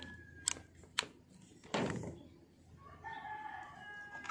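Two sharp clicks about half a second apart as the WiFi modem's power plug is pushed in and handled, then a brief rustle. Near the end a long crowing call, held for about a second and a half, sounds in the background.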